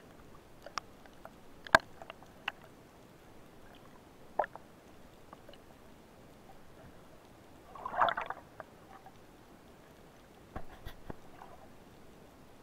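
Underwater sound through a camera housing: scattered sharp clicks and ticks, with a short rush of noise about eight seconds in and a few more clicks near the end.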